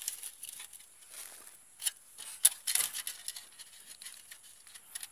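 Hands handling a perforated-metal rat cage trap while setting bait inside it: scattered light rustles and taps, with a few sharper metallic clicks about two to three seconds in.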